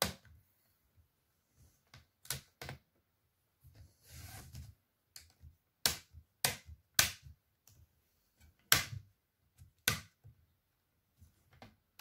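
Plastic screen bezel of an HP laptop lid being pressed home by hand, its clips snapping into place as a series of sharp clicks, with a brief rustle of handling near the middle.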